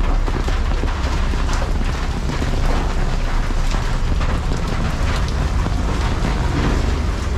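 Steady rain falling and pattering on surfaces, with a deep rumble underneath.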